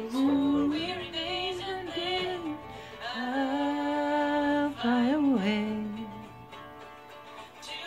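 Music: a woman's voice singing a slow song in long held notes over a light guitar-like accompaniment; the voice drops out near the end while the accompaniment carries on quietly.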